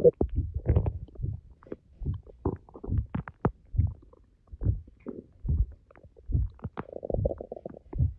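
Human stomach growling and gurgling on an empty stomach after about ten hours without food: a string of short low rumbles, roughly one a second, and a longer gurgle about seven seconds in.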